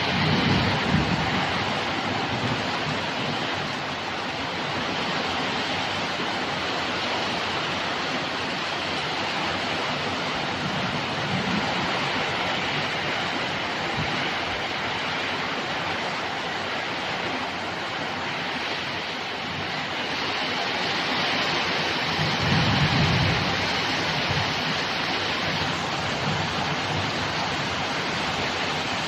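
Heavy rain pouring down steadily in a thunderstorm, with low rumbles of thunder near the start and again about two-thirds of the way through.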